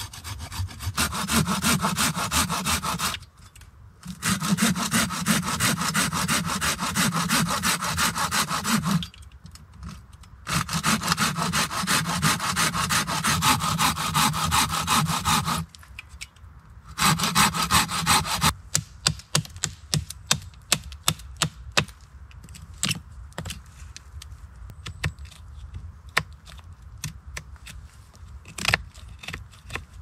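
Hand saw cutting a thin birch stick, in four long runs of quick back-and-forth strokes with short pauses between them. About eighteen seconds in the sawing stops, and scattered light wooden clicks and knocks follow.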